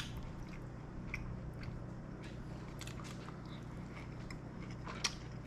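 A person chewing a bite of grilled ribeye steak, with soft wet mouth clicks and smacks.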